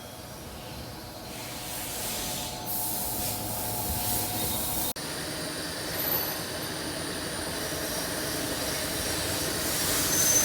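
Steady din of a workshop full of running CNC machines: a mix of machine hum and hiss with faint steady tones. About five seconds in, the sound cuts abruptly to a similar machine noise, which grows louder near the end.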